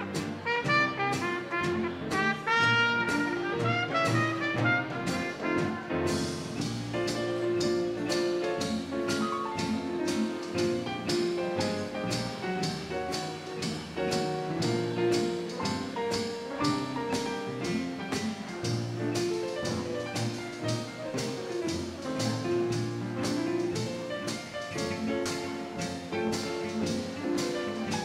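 A small 1920s–30s-style dance band plays an instrumental jazz tune. A brass horn carries the melody over piano, strummed guitar and upright bass. A steady beat comes in about six seconds in.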